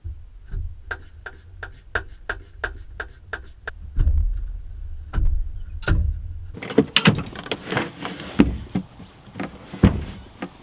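Workshop handling noise as a fold-down seat and its metal brackets are fitted in the back of a Land Rover Defender. A run of evenly spaced clicks, about three a second, comes first. Then, from about six seconds in, irregular knocks and clunks as the seat is moved and set in place.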